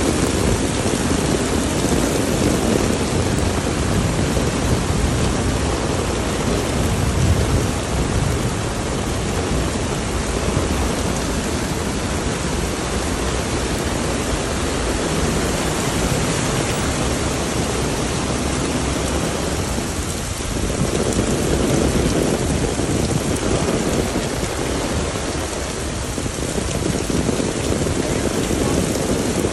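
Torrential rain pouring onto pavement and road: a loud, steady hiss of heavy downpour.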